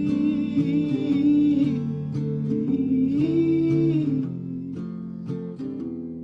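Background song with acoustic guitar strumming under a sung melody; the voice ends about four seconds in, leaving the guitar alone.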